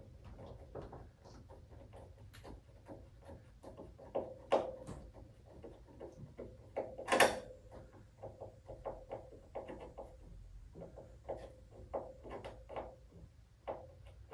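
Trim screws being driven by hand with a screwdriver to fasten a rubber hood seal to the car's cowl: a run of small irregular clicks and scrapes, with a sharper knock about 7 seconds in.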